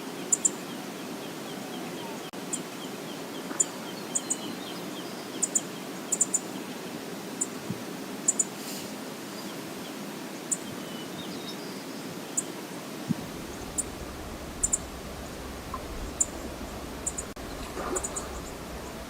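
Steady rush of the waterfall on the Brooks River, with short, high bird chirps repeating every second or two. A low rumble joins about two-thirds of the way through.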